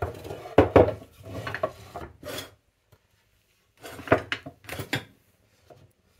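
A wooden box scraped and knocked on a kitchen worktop as it is pushed and set into place, in two spells of rubbing and clatter with a few sharp knocks.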